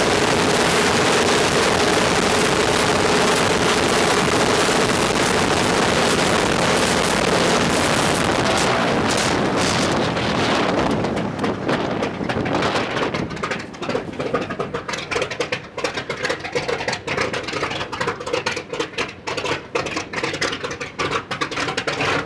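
Shvetsov ASh-82T 14-cylinder radial engine of an Il-14T running loud and steady on a ground run. About halfway through it drops to a rough, uneven run with irregular pops, then falls away sharply at the very end.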